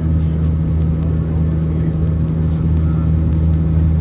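Steady drone of an Airbus A319-131 in flight, heard inside the passenger cabin: its IAE V2500 jet engines and the airflow make an even, unchanging hum with strong low tones.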